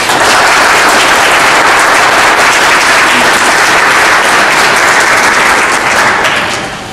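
Audience applauding, a loud, steady mass of clapping that dies away near the end.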